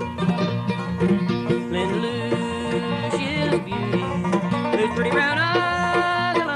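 Bluegrass band of banjo, guitar, mandolin and bass playing an instrumental passage, with picked notes running steadily throughout.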